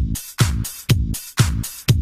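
Electronic dance music with a steady four-on-the-floor kick drum, about two beats a second, and bright hi-hat hits between the kicks.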